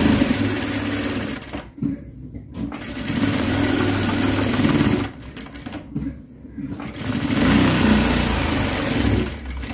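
ZOJE sewing machine stitching cotton fabric in three runs, stopping briefly between them as the pillowcase border is sewn.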